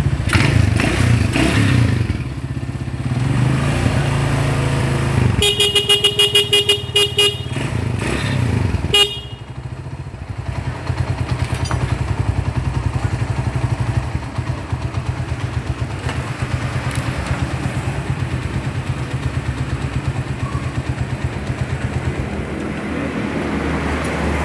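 Motorcycle engine revving, then its horn sounding in a quick run of short honks about five seconds in and once more briefly, then the engine running steadily at idle. This is a test run after the ignition pickup was reworked, which the mechanic judges to be running normally again.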